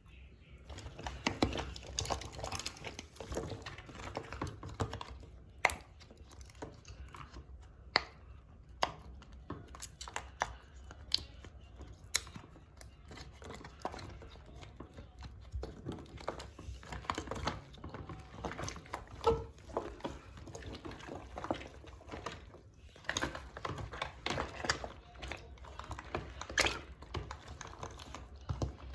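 Fidget toys being pressed and handled in a sink of water: irregular sharp clicks and pops, with light sloshing of water.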